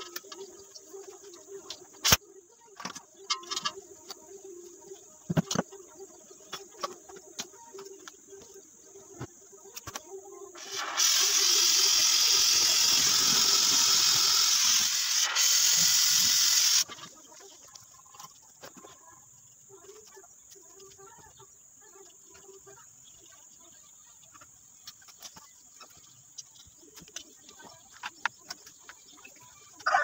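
Compressed gas hissing loudly out of a refrigeration hose and valve for about six seconds, starting and stopping sharply, as the lines are charged for a leak test. Scattered clicks and knocks of fittings being handled come before and after it.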